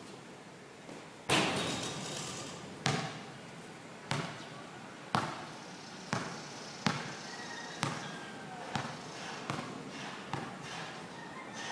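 A basketball being dribbled on a court: about ten sharp bounces, each with a short ring, the loudest about a second in, coming slowly at first and then quickening to roughly one a second.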